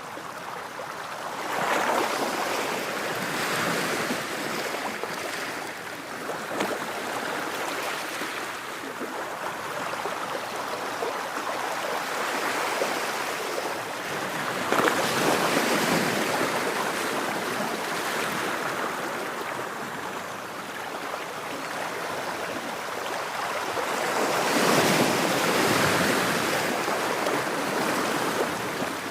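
Ocean surf washing onto a beach: a continuous rush of waves that swells louder as a wave breaks, about two seconds in, around the middle, and again near the end.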